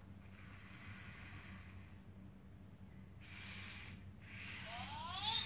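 Small servo motors of a Robi humanoid robot whirring in two short bursts as it does push-ups, the second with a rising whine near the end.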